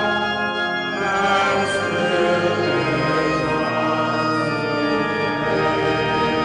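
Church organ playing a hymn in held chords that change every second or two, with the congregation singing along.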